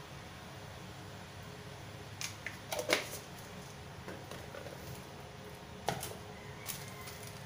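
Kitchen utensils and a cup handled on a tiled counter: a quick cluster of sharp clicks and clinks about two to three seconds in, and another knock near six seconds, over a steady low hum.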